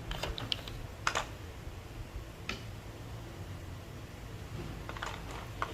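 A few light plastic clicks and taps of thick PBT keycaps being handled: a small cluster at the start, single taps about one and two and a half seconds in, and a few more near the end.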